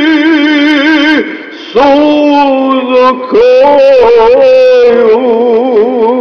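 A singing voice holding long, drawn-out notes with wide vibrato, breaking off briefly about a second in and again near the middle.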